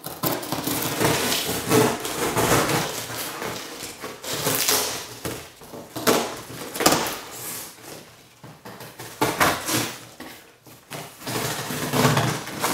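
Scissors cutting through the packing tape on a cardboard shipping box, with the cardboard scraping and rustling under the hands in irregular bursts and a few sharp snaps.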